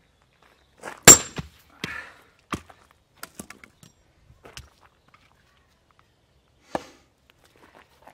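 Splitting firewood with a steel wedge: a loud, sharp crack about a second in as the wedged log splits apart, followed by several smaller knocks and clicks as the split pieces and the wedge fall and are handled. Near the end comes a single wooden knock, as another log is stood on the chopping block.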